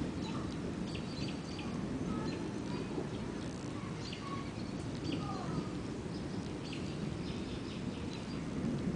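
Continuous low rumbling of distant thunder, with birds chirping in short high calls over it.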